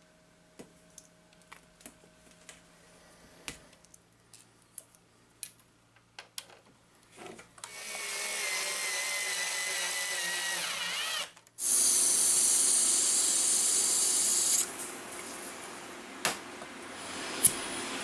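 Cordless drill driving a screw: a steady motor whine that sags in pitch as the screw seats, a brief stop, then a louder, hissier run. Sparse light clicks of hand tools come before it.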